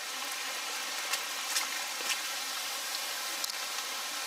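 Steady heavy rain falling, an even hiss with scattered sharp ticks of drops striking close by.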